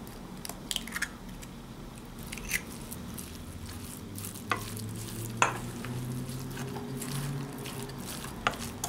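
A raw egg being cracked against a stainless steel mixing bowl, then a wooden spoon stirring it into minced pork dumpling filling, with a few sharp knocks of the spoon on the bowl. A low steady hum sits underneath, stronger in the second half.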